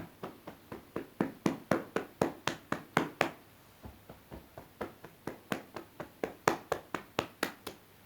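A hand tapping on the back of the arm, qigong meridian tapping, about four quick taps a second, with a pause of about a second a little before halfway.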